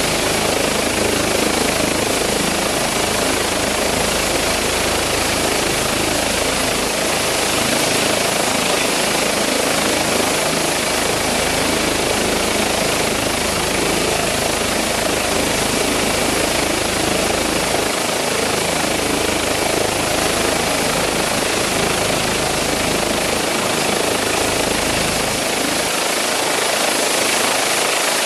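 Twin-turbine Eurocopter EC135 helicopter with a Fenestron tail rotor running on the ground with its main rotor turning, a steady loud rush of rotor and turbine noise with a thin high whine held over it.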